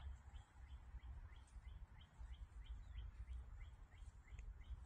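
Faint bird calling: a steady run of short, rising chirps, about three a second, over a low rumble.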